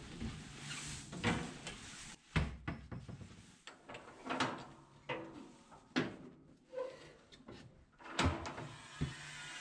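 Irregular knocks and clunks, about a dozen spread unevenly, as a soccer shoe is handled and set into a shoe-sole press. A low steady hum runs underneath at the start and again near the end.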